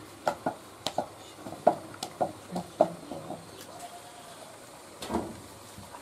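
Dry bamboo splints of a hand-woven fish trap clicking and rattling as they are handled and fitted, a quick run of sharp taps in the first half, then a single louder knock about five seconds in.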